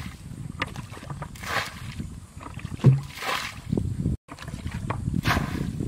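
Water being bailed out of a shallow muddy pool with a plastic bucket: a splash about every two seconds as each scoop is flung out, with sloshing between. There is a dull thump about three seconds in.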